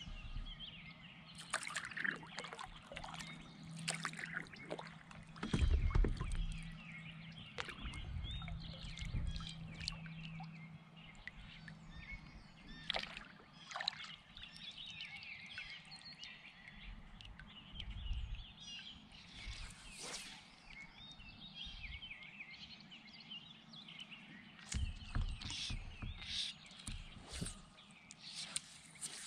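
Several birds singing and chirping throughout, with occasional low bumps and knocks from a plastic kayak and its paddle being handled, the loudest about six seconds in. A faint steady low hum sits underneath for the first dozen seconds.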